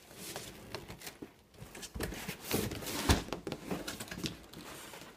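Large cardboard TV carton being slid up and off the television: cardboard scraping and rustling against the plastic-wrapped set, with scattered knocks and one louder thump about three seconds in.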